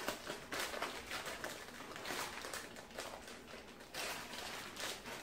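Plastic zip-top freezer bag rustling and crinkling in quick scratchy bursts as it is handled and sealed.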